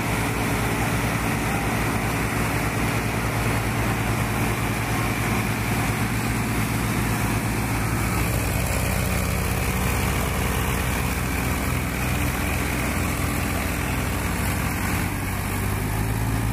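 Diesel tractor engines running steadily while hauling a straw-laden trolley out of a field on a tow cable, the engine note shifting slightly about halfway through.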